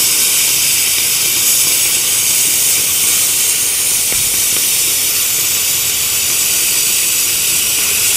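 Plasma cutting torch of an NBC 288 multi-function welder-cutter cutting through aluminium plate: a loud, steady hiss of the cutting arc.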